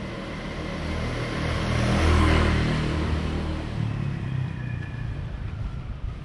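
Motor vehicle passing on a street: engine rumble and road noise swell to a peak about two seconds in, then slowly fade.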